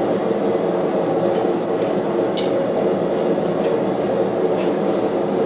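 Steady mechanical drone of running forge-shop equipment, with a few faint ticks and one sharp metallic clink about two and a half seconds in.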